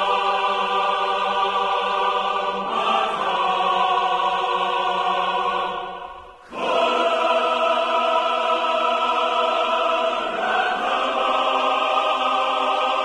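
Music: a choir singing long held chords, which change every few seconds. The sound falls away briefly about six seconds in, then comes back with a new chord.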